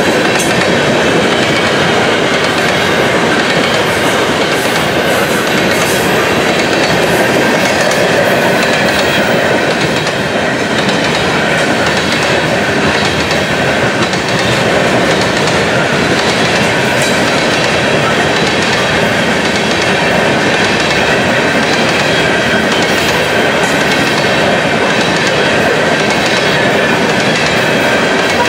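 A long string of covered grain hopper cars rolling past: the steady loud rumble of steel wheels on rail, with clicking as the wheels cross rail joints.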